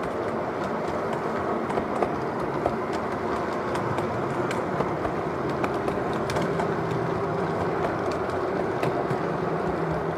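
O gauge three-rail model train freight cars rolling past on the track: a steady rumble with scattered sharp clicks.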